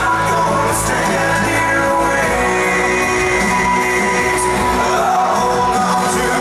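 Music with a singing voice, playing steadily throughout.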